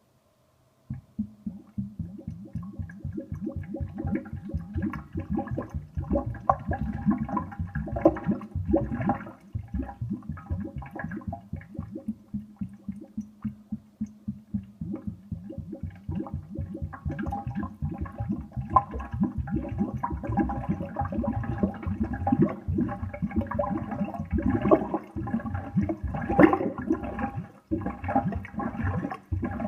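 Kitchen sink drain gurgling and bubbling with rapid splashing in the trap, starting about a second in and going on with louder surges; really quite loud. The owner takes it to be sewer gas breaking through the P-trap's water seal.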